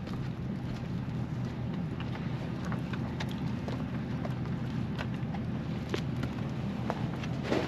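Pickup truck engine idling with a steady low hum, with scattered faint clicks and ticks over it.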